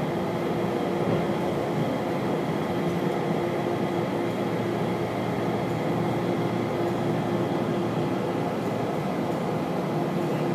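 Rubber-tyred airport people mover heard from inside the car, running slowly on its concrete guideway as it pulls into the station: a steady rumble with a constant hum. The hum drops out briefly near the end.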